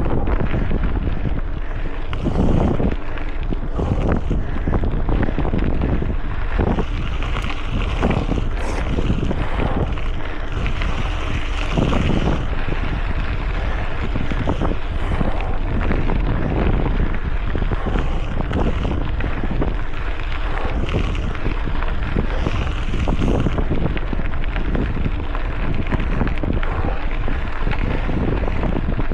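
Wind buffeting a small action camera's microphone while riding a mountain bike, a steady loud rush, broken throughout by short knocks and rattles from the bike over rough ground.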